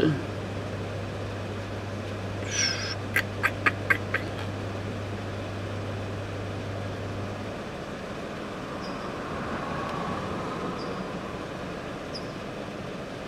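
Quiet background noise with a low steady hum that stops about halfway through. A short rustle is followed about three seconds in by a quick run of five sharp clicks.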